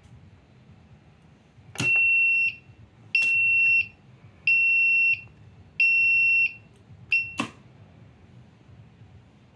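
Buzzer of a custom two-floor goods-lift button panel beeping: four steady high-pitched beeps of about two-thirds of a second each, roughly one every 1.3 seconds, then a short fifth beep. A sharp click comes with the first beep and another just after the last.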